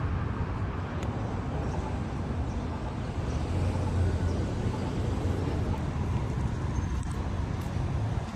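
Steady rumble of a car on the move, engine and road noise with no sharp events.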